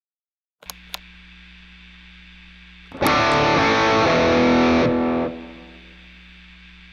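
Two clicks of a valve guitar amp's power and standby toggle switches, after which the amp hums steadily. About three seconds in, a distorted electric guitar chord is struck through it and rings for about two seconds before dying away into the hum.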